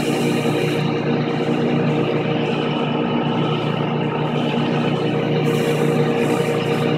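Homemade jointer running at speed, its motor driving the cutterhead through a 5-rib belt and pulleys: a steady hum and whine that holds one pitch throughout. It runs smoothly, with no vibration.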